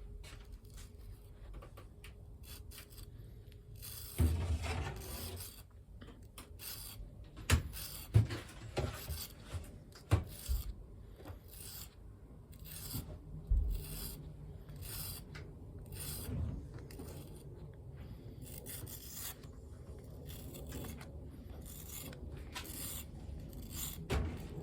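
Diamond sharpening stick rubbed in repeated short strokes along the bevel of a steel woodturning skew chisel, a dry scraping sound, filing off the burr raised by belt sanding. A few louder knocks come in among the strokes.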